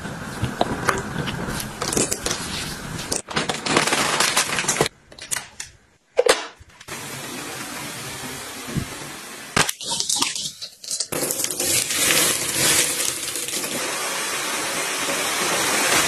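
Close handling sounds with scattered clicks as hair mask cream is taken from a jar, then, after a brief near-silent break about six seconds in, a hair dryer blowing with an even hiss that dips briefly around ten seconds and grows steadier and louder toward the end.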